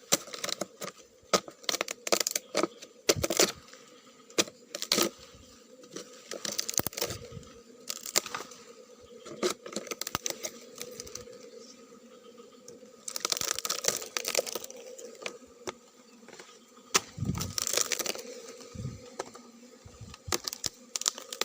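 Machete (golok) hacking into a dead tree-fern trunk: many sharp, irregular chopping strikes, with rough tearing and cracking of the fibrous wood in between.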